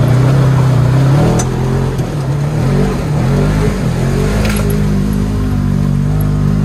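Side-by-side UTV engine running under load while fording a river. Its pitch dips and recovers between about two and four seconds in, then holds steady, over the wash of water around the vehicle.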